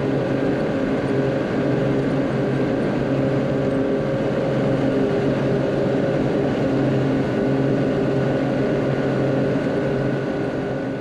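M35 deuce-and-a-half army truck's diesel engine running steadily under way, an even, unchanging pitch with no revving or gear changes.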